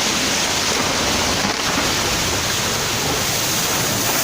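Steady, loud noise of rushing water.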